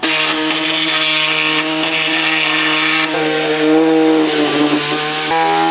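Handheld power tool running continuously at the workbench, its motor whine steady over a hiss of cutting or grinding. The pitch shifts about three seconds in, sags and recovers as the tool loads up, then changes again near the end.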